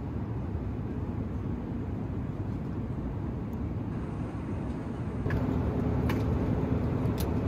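Steady low rumble of airliner cabin noise, growing a little louder about five seconds in, where a steady hum joins it, with a couple of faint clicks near the end.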